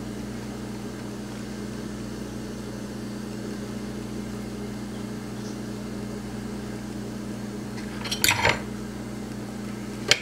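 Steady low hum, with a short clatter of a bowl being handled about eight seconds in and a sharp click just before the end.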